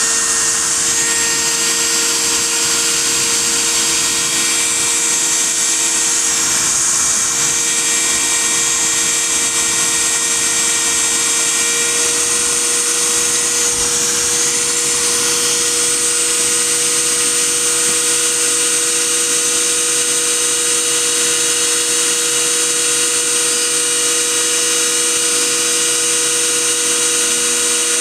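High-speed spindle motor of a small CNC PCB milling machine running steadily with a constant high-pitched whine as it mills a circuit board.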